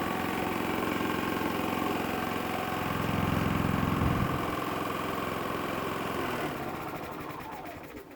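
Portable inverter generator running in eco mode, then shut off: the engine winds down and stops about seven to eight seconds in.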